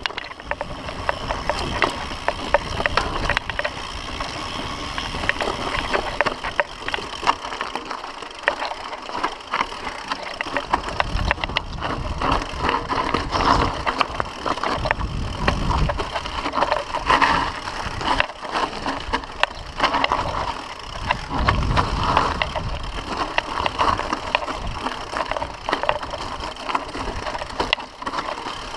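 Mountain bike rolling fast down a dirt and rock singletrack. The tyres crunch over dirt and stones, and the frame rattles in a dense run of clicks, with a few heavier low rumbles along the way.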